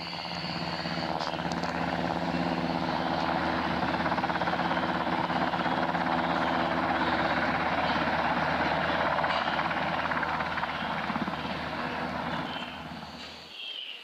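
Helicopter sound effect laid over the footage: steady rotor and engine noise that builds in, holds, then fades and cuts off abruptly near the end.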